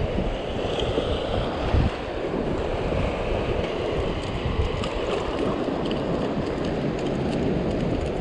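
Gusty wind buffeting the microphone, over the steady rush of tidal water running out across shallow sand flats.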